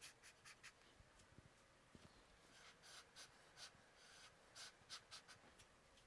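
Near silence, with a string of faint, short scratching strokes.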